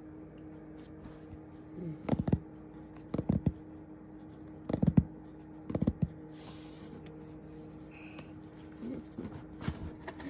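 Fingertips and nails tapping on the lid of a cardboard box, in four short bursts of quick taps. A faint steady hum sits underneath.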